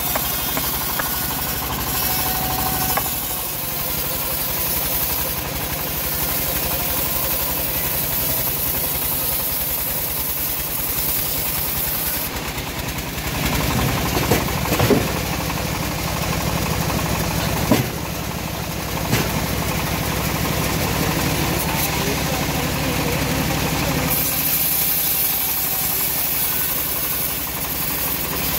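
Engine of a homemade bandsaw sawmill running steadily, with a few sharp knocks of heavy timber being handled about halfway through.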